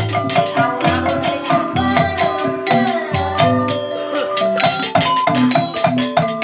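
Dance music with a steady beat and a melody running over it.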